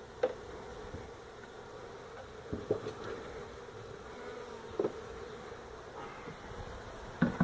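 A honey bee colony buzzing steadily as its hive is opened up, with four brief knocks about two seconds apart, the last one the loudest.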